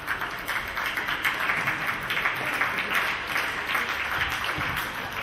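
Spectators applauding in a large hall.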